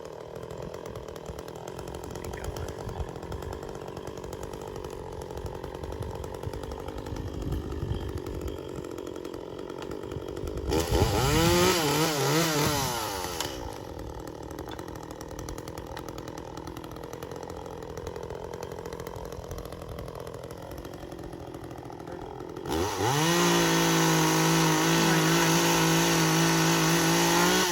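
Chainsaw idling, revved up and back down briefly about eleven seconds in, then held at high revs for the last five seconds.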